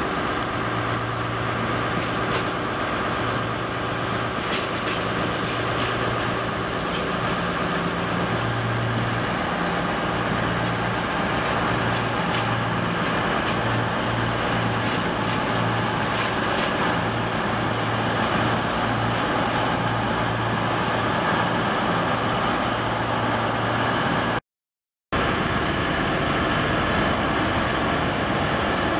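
CrossCountry Voyager diesel multiple unit moving past, its underfloor diesel engines giving a steady low hum that pulses slightly. The sound drops out briefly near the end.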